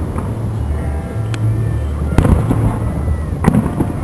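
Fireworks display: aerial shells bursting with three sharp bangs, about a second apart, over the steady crackle and rumble of ground fountains.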